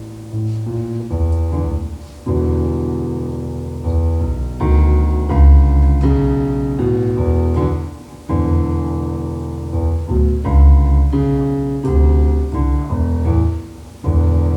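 Piano music: slow chords struck every second or two and left to ring out, over deep bass notes.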